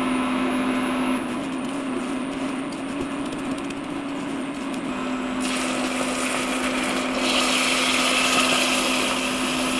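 A silicone spatula stirring and scraping blended banana chips into melted butter and sugar in a stainless steel saucepan, over a steady hum. About halfway through, cream is poured into the hot pan and the hissing, bubbling noise grows louder.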